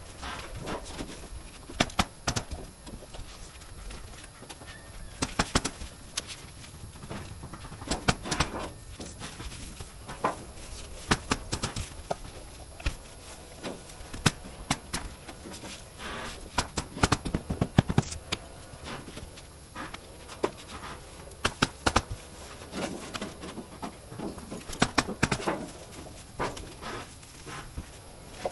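Roofing work on a shingle and membrane roof: irregular sharp knocks and clicks of tools and material, some single and some in quick clusters, over a steady outdoor background.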